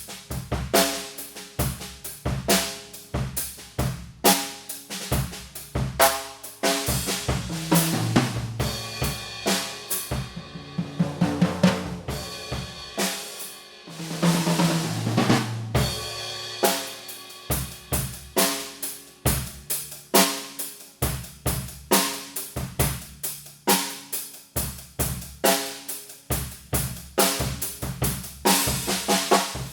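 Yamaha Stage Custom Birch drum kit with Paiste PST 8 cymbals played solo: a steady groove of kick, snare and hi-hat, broken in the middle by a long fill on the drums before the groove comes back.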